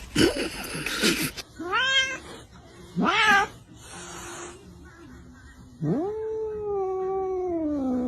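Animal cries: a short burst of noise at the start, then two brief cries that rise and fall in pitch, and about six seconds in a long, drawn-out, wavering cry.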